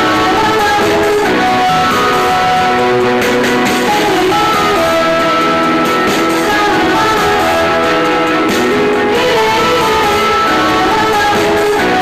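Background music led by guitar, with a steady melodic line throughout.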